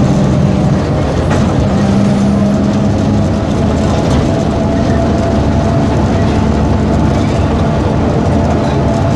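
Diesel engine of a Volkswagen 17.230 EOD bus chassis running with a steady drone.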